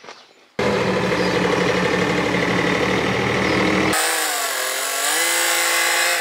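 An engine starts running abruptly about half a second in, loud and steady. About four seconds in it switches suddenly to a smoother engine note with a few held pitches that waver slightly.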